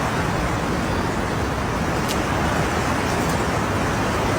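Floodwater rushing hard down a street, a loud steady rush of water noise, with one brief click about two seconds in.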